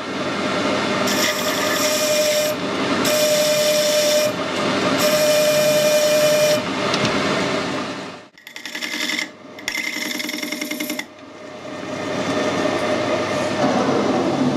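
Metal lathe cutting a large ring held in the chuck with a carbide insert tool: a steady machining noise with a sustained singing tone. It breaks off and resumes several times, and after about 11 s a quieter, steadier running sound is left without the tone.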